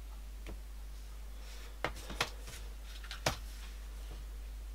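A handful of sharp small clicks and taps, the loudest about two and three seconds in, from locking forceps being released and set down and a small cast-iron axle box cover being handled on the bench, over a low steady hum.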